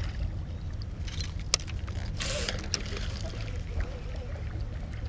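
Water splashing and sloshing as a topwater musky lure is worked at the boatside, with a brief louder splash about two seconds in, over a steady low hum.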